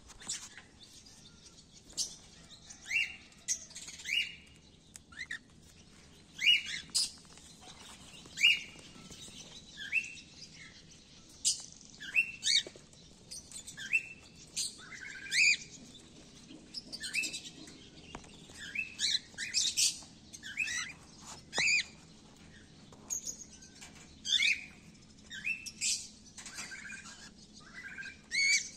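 Cockatiels chirping: short, rising-and-falling whistled calls repeated about once a second, several overlapping at times.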